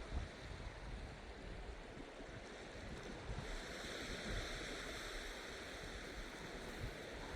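Small waves washing on a sandy shore with wind on the microphone; the wash grows louder about three and a half seconds in.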